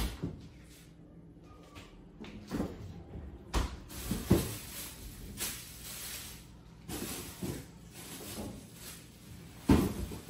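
Kitchen handling noise: a scattered series of knocks and clunks, like cupboard doors and utensils being moved. An even hiss runs for about three seconds in the middle.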